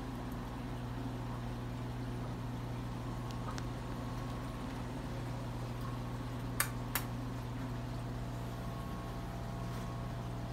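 Steady hum and water noise of a running saltwater aquarium's pumps and equipment, with two sharp clicks of the glass tank lid being lifted, about a third of a second apart, roughly two-thirds of the way through.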